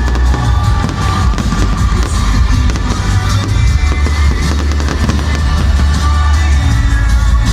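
Fireworks crackling and bursting under loud music with a heavy, steady bass.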